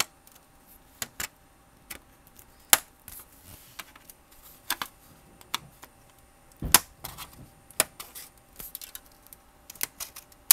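Plastic snap clips of a Dell 1704FPVt LCD monitor's bezel clicking and popping loose as a screwdriver pries the case apart: irregular sharp clicks, the loudest about 3 and 7 seconds in.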